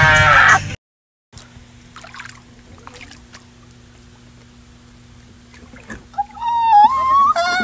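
A person screaming, cut off abruptly under a second in. Then faint water trickling and splashing in a hot tub over a steady low hum. About six seconds in a person lets out a long, loud, wavering yell.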